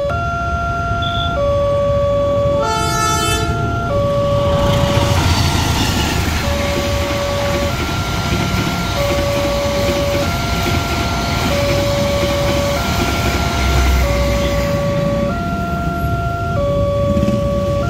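Railway level-crossing warning signal sounding its electronic two-note chime, high and low notes alternating about every second and a quarter throughout. The KA Bogowonto passenger train runs past from about four seconds in until near the end, a rushing rumble of wheels on rail. A short train horn blast comes about three seconds in.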